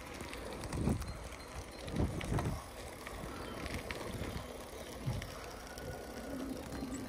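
Bicycle rolling over a gravel path: steady tyre rumble, with the frame and handlebars jolting in several sharp bumps.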